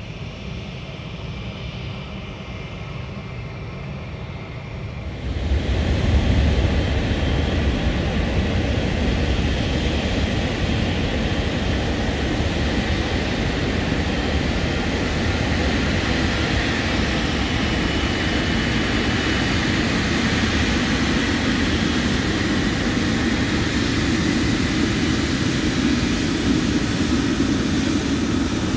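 Airliner jet engines on the runway at moderate level for the first five seconds, then suddenly much louder: the twin turbofans of a Boeing 777 freighter (GE90) running at taxi power close by, a deep rumble under a steady high engine whine.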